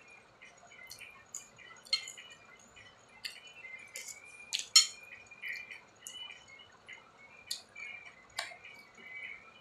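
Close wet mouth sounds of someone eating papaya salad with chicken feet: irregular smacking clicks and chewing, the sharpest a little before the five-second mark. High, continuous bird chirping runs underneath.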